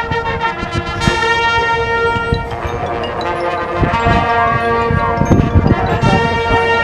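High school marching band playing sustained brass chords over drum and percussion hits, growing gradually louder.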